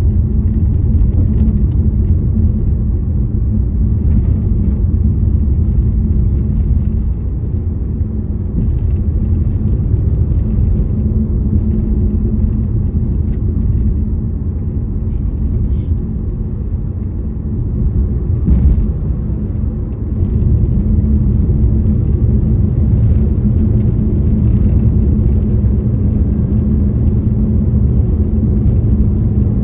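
Car driving along a road: a steady low rumble of engine and tyres, easing off a little for a few seconds about two-thirds of the way through.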